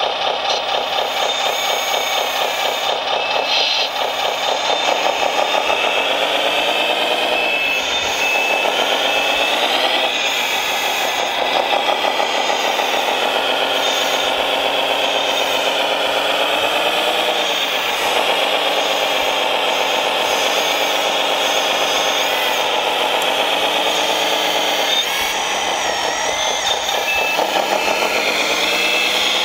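Simulated diesel engine sound from a 1/14-scale RC wheel loader's sound module, playing through a small speaker and revving up and back down again and again as the loader works. Short beeps, like a reversing alarm, come near the end.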